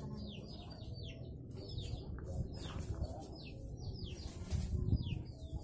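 Small birds chirping, a run of short downward-sliding chirps repeated in quick clusters, over low rustling and handling noise, with a soft knock near the end.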